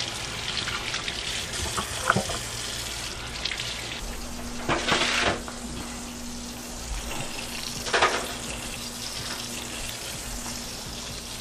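Vegetables being set into a disposable aluminum foil catering pan: a soft knock about two seconds in, then the thin foil crinkles sharply twice, about five and eight seconds in, over a steady hiss.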